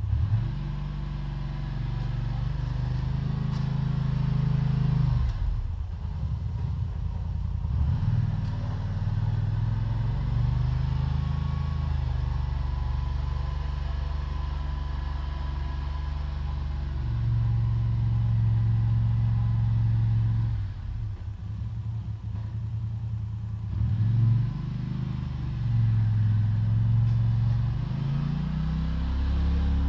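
Small riding tractor's engine running while it pushes snow with a front plow blade. The engine note rises and falls as the machine works back and forth, and dips twice.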